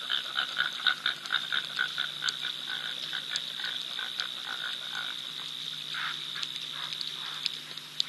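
Frogs calling in a quick series of short croaks, about three a second, fading out around five seconds in, over a steady high-pitched insect chorus.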